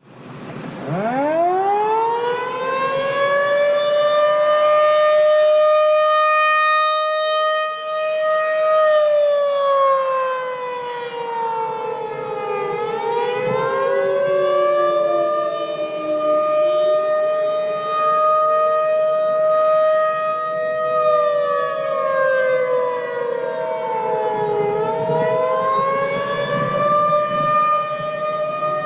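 Civil defense siren winding up about a second in to a steady wail, then sliding down and back up in slow waves, twice. A second, lower siren tone slides against it.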